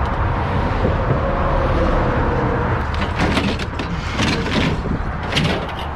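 Steady rumble of highway traffic, with a run of clattering knocks in the second half as heavy traffic-control equipment is handled.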